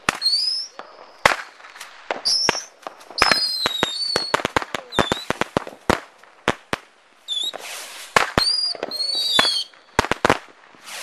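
A box of bottle rockets going off in a rapid, irregular volley: many short rising whistles as rockets launch, mixed with dozens of sharp pops and bangs from their reports.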